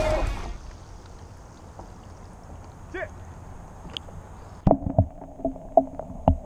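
Muffled underwater gurgling around a camera that has gone under the water, with soft gurgles about halfway in and a string of sharp bubbly pops from about two-thirds through. Guitar music fades out at the very start.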